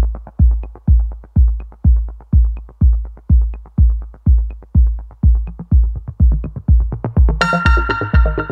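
Electronic background music: a steady kick-drum beat, about two beats a second, with a bright synth line coming in near the end.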